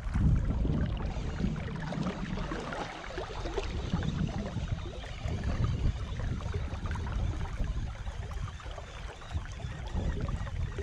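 Shallow seawater sloshing and splashing close to the microphone, with a low wind rumble on the microphone.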